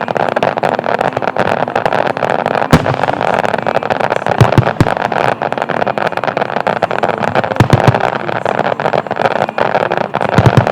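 Aerial fireworks bursting in rapid succession, a dense crackle of many small reports with four deep booms spread through the barrage.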